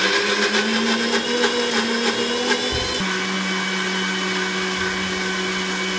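Electric mixer grinder running steadily, grinding grated coconut with water to make coconut milk. Its motor hum steps down slightly in pitch about three seconds in.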